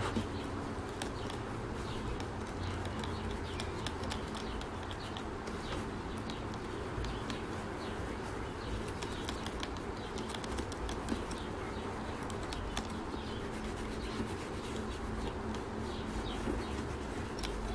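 Cotton ball rubbing wet Kiwi Parade Gloss polish into the toe of a black leather boot: a soft, steady scrubbing with faint scattered ticks.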